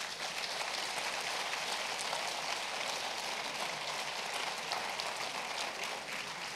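Audience applauding: a steady patter of clapping from a seated crowd.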